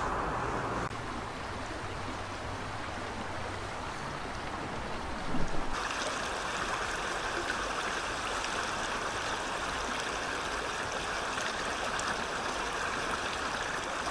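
Flowing water: a steady rushing sound that shifts abruptly twice, with a brief louder sound a little over five seconds in.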